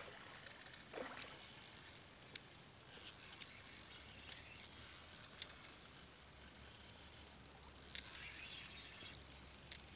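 Fishing reel winding and clicking in spells as a tiring fish is played on the line, over a steady high buzz of insects.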